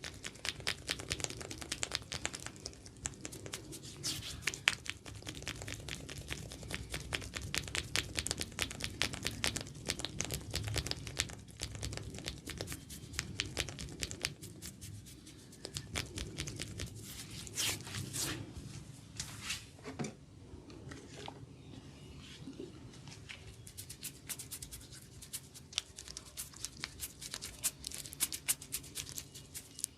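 Fingers scratching and working oiled hair and scalp during a head massage: a dense run of quick, crunchy crackles and scratchy clicks, several a second, with a few louder snaps among them.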